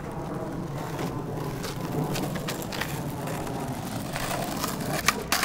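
Skateboard wheels rolling over rough asphalt with a steady gritty rumble. Sharp clacks come more often toward the end, and the loudest knock lands right at the end, typical of a board popping or landing.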